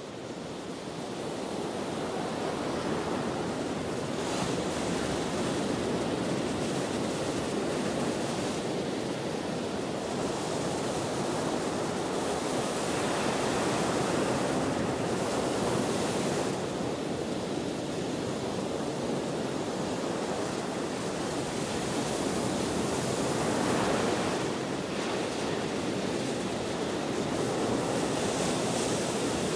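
Ocean waves breaking and washing in with gusty wind, a steady rush of surf that swells and eases every few seconds.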